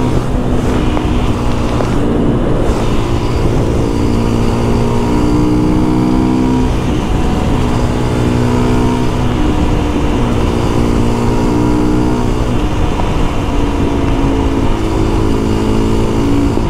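Husqvarna FE 350's single-cylinder four-stroke engine running at a steady cruise, its pitch holding and then shifting slightly every couple of seconds as the throttle changes, over a steady rushing noise.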